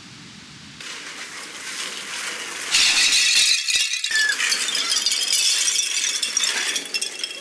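A dense, noisy rattling clatter that builds up and turns loud about three seconds in, with a brief high squeak a little after four seconds.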